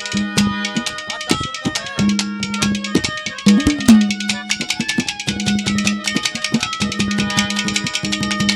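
Instrumental interlude of Haryanvi ragni folk music: a hand drum plays a fast, dense rhythm of strokes over steady held melodic notes, with one bending bass drum stroke about three and a half seconds in.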